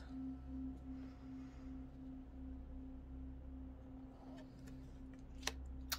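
Quiet background music: one low held tone that pulses gently a few times a second over a faint low hum, with a single light tap near the end.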